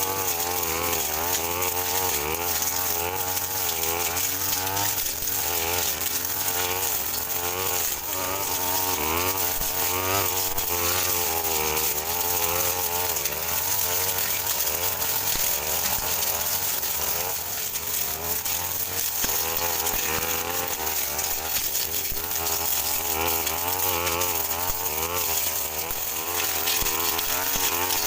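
Brush cutter engine running hard, its pitch wavering up and down as the blade cuts through scrub grass mixed with cogon grass. The engine stays light under the load.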